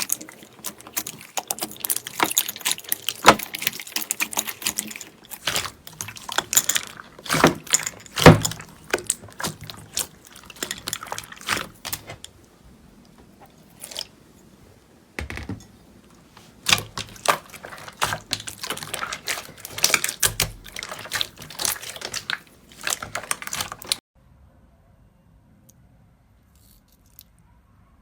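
Slime being squeezed and worked by hand, making dense crackling clicks and wet pops. The sound thins out briefly about halfway through and stops a few seconds before the end.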